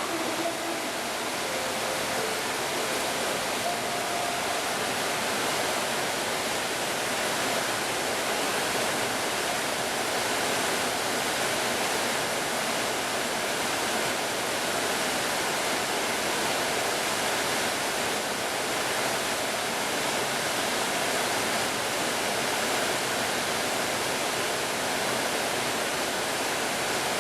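Steady rushing of water at Fukiware Falls, a wide waterfall on the Katashina River, as a constant, even roar of falling water.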